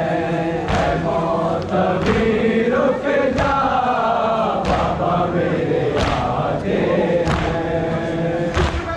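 Men chanting a Muharram noha lament together, with sharp chest-beating (matam) strikes in time with the chant, about one every second and a third.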